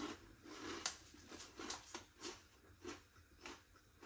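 Faint crunching of someone chewing Kurkure corn and rice snacks, soft strokes about twice a second.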